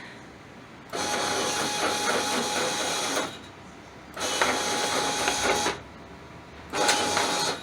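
Linear actuator axis driven by a hybrid servo stepper motor, jogged three times in short runs of one to two seconds, each a steady motor whir with a thin whine over it.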